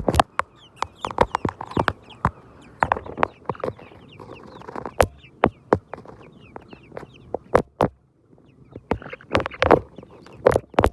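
Chickens clucking, mixed with many sharp, irregular clicks and taps that ease off briefly a little past the middle and pick up again near the end.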